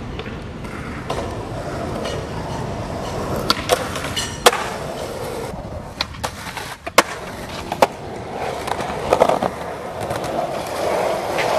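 Skateboard wheels rolling on concrete, with a run of sharp clacks midway as the board pops up, slides down a painted concrete hubba ledge and lands, then rolling again.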